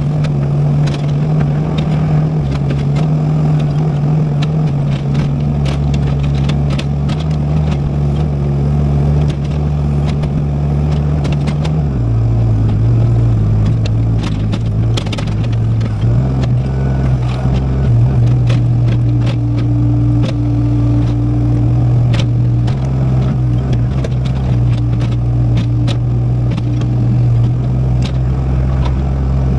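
Excavator's diesel engine running steadily under load, its note dipping for a few seconds about twelve seconds in and then rising again, with frequent short knocks and scrapes of the bucket digging into the dirt.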